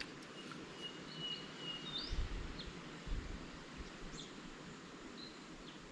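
Quiet outdoor background with birds calling: a few short thin whistles and a quick rising chirp about two seconds in. A few soft low bumps are heard alongside.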